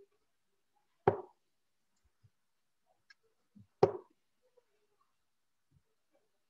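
Two steel-tip darts thudding into a bristle dartboard, about three seconds apart, each a short sharp hit.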